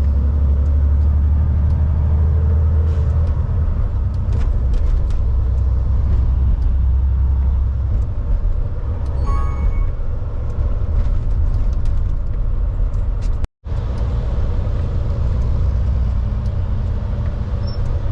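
Semi-truck's diesel engine pulling a heavy load uphill, a loud, steady low drone heard from inside the cab. The sound cuts out for an instant about two-thirds of the way through.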